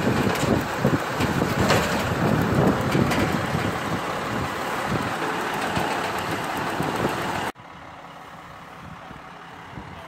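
Shingle delivery truck's engine and conveyor boom running, with scattered clanks and rattles, as bundles of shingles are carried up to the roof. Cuts off suddenly about seven and a half seconds in, leaving a much quieter background.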